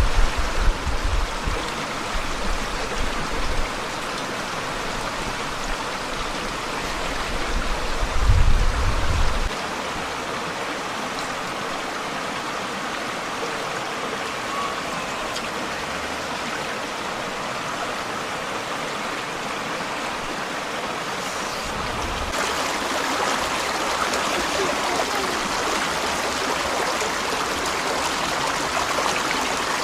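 Steady rush of a forest stream's flowing water, growing a little louder past the two-thirds mark. Low rumbles come in the first few seconds and again about eight seconds in.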